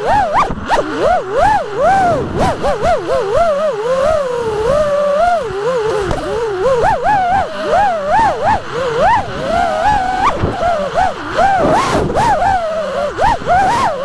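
FPV quadcopter motors whining in flight. The pitch swoops up and down constantly as the throttle is punched and chopped.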